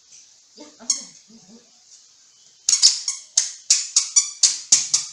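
Toddler's squeaky shoes squeaking with her steps: a single sharp, high squeak about a second in, then a quick run of sharp squeaks about four a second in the second half.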